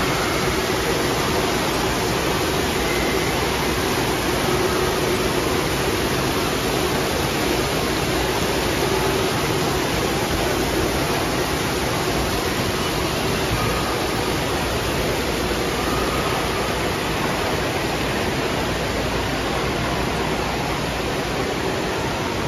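Indoor water park ambience: a steady, even rush of spraying and falling water from splash-pad fountain jets and a water play structure.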